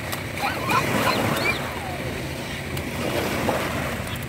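Small waves breaking and washing up onto a sandy beach, with wind on the microphone. A few short high-pitched calls come about half a second to a second and a half in.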